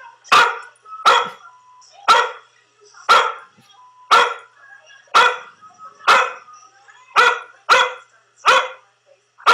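A recording of a dog barking, played back from a YouTube video: a steady run of about a dozen single barks, roughly one a second.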